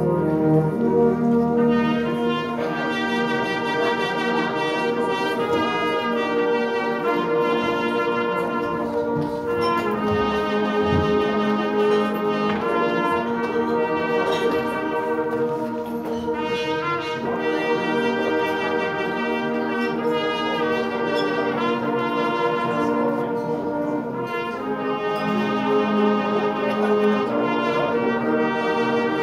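A brass band playing a concert piece: tubas, euphoniums and higher brass sounding together in long held chords.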